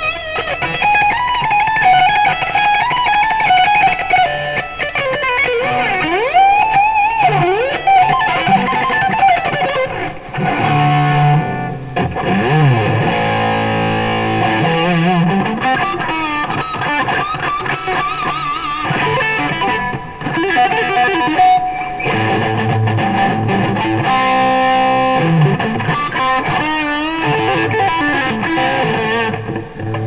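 Electric guitar, a PRS SE Custom with a Seymour Duncan pickup, played through a Marshall AVT150H Valvestate head and a cab loaded with Celestion Greenback speakers. It plays lead lines with bent, swooping notes, mixed with held chords.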